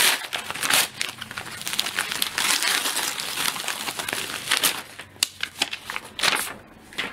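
A padded paper mailer being torn open and its crinkly lining and plastic wrapping handled: a dense rustling, crackling run of crumpling that thins to a few separate crackles over the last two seconds.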